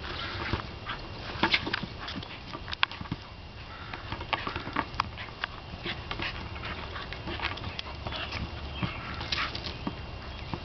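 Australian Cattle Dog whimpering in short bursts as it mouths and paws a ball, with many sharp clicks and scuffs of teeth and paws on the ball.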